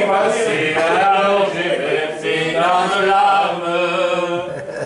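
Unaccompanied singing, a slow chant-like melody in long held notes, with a brief pause for breath near the end.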